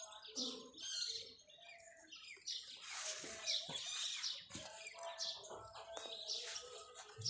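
Rose-ringed parakeet chirping and chattering in a quick series of short, high calls.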